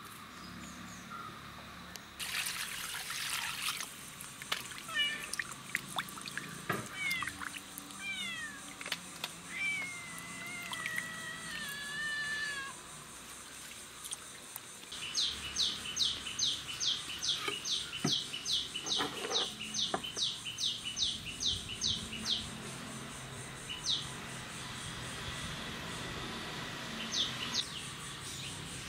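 Water splashing as whole Indian mackerel are washed by hand in a clay bowl, over outdoor insect and bird sounds. Past the middle comes a long run of quick chirps, about three a second, for several seconds.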